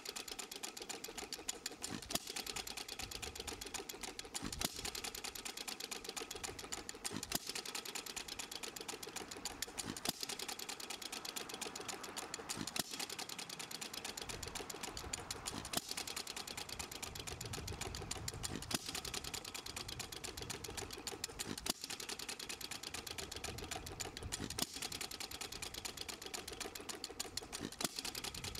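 Stuart Little Major antique hit-and-miss engine running: a fast, even mechanical clatter from the spinning flywheel and valve gear, with a louder sharp pop every two to three seconds as it fires, coasting between the firings.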